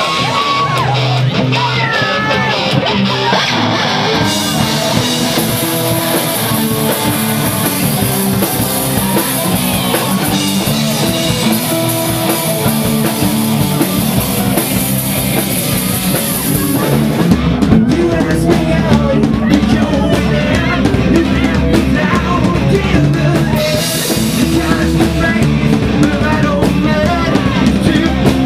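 Live rock band playing loud, with electric guitar, drum kit and cymbals. About seventeen seconds in, the low end gets much heavier and the band sounds fuller.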